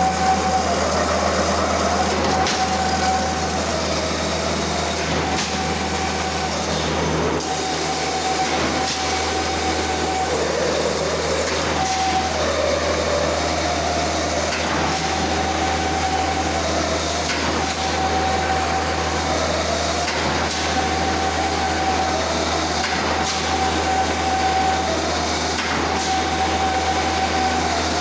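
Automatic wire straightening and cutting machine running: a steady mechanical whir over a low hum, with a mid-pitched whine that comes in for a second or two at a time, again and again, and a few faint sharp clicks.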